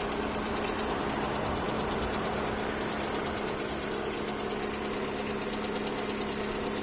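Lada Priora engine idling steadily with a fast, light, regular ticking over the engine note, like a clock's second hand. The owner says the tick stops once the engine warms up a little.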